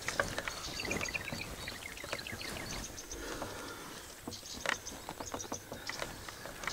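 Irregular rustling and light clicks of people moving about on grass, with scattered short ticks.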